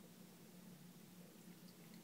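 Near silence: a cat lapping water from a sink basin, faint wet little ticks over a steady low hum.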